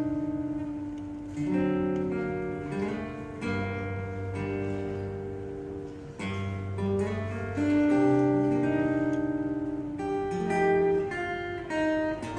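Solo acoustic guitar played fingerstyle: a plucked melody over bass notes, with new notes and chords struck every second or two and left to ring.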